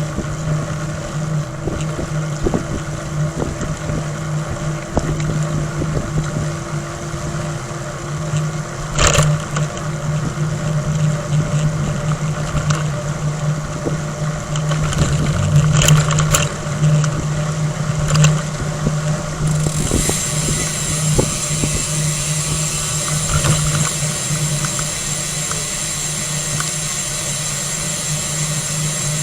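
Steady low mechanical hum with road noise and scattered clicks while riding; a high hiss comes in about two-thirds of the way through.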